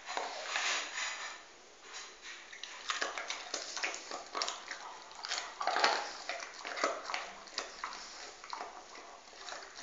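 A dog gnawing and chewing on a bone: irregular crunching, cracking and scraping clicks at an uneven pace, with the loudest bites about three seconds and six seconds in.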